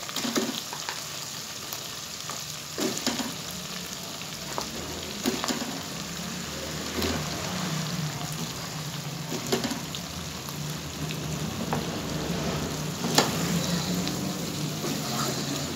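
Potatoes and mutton sizzling as they fry in the masala in a pot, with a wooden spatula stirring and clacking against the pot every few seconds, the loudest clack about thirteen seconds in.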